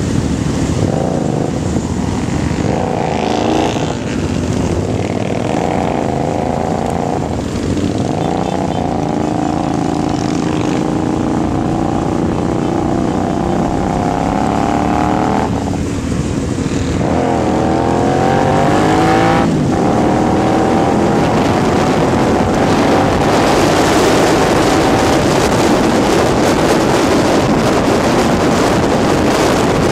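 Onboard sound of a Mirage 250 cruiser motorcycle riding among a pack of motorcycles. Its engine rises in pitch several times as it accelerates through the gears, with short breaks between the rises. Wind noise builds as speed picks up in the second half.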